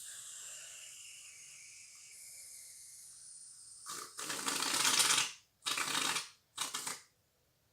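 Aerosol can of shaving foam spraying with a crackly, sputtering hiss: one longer burst about four seconds in, then two short bursts.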